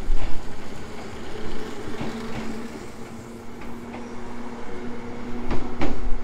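A JR Kyushu 103 series 1500 electric train pulling away from a station platform, running with a steady hum. Its wheels click over rail joints a few times, more loudly near the end.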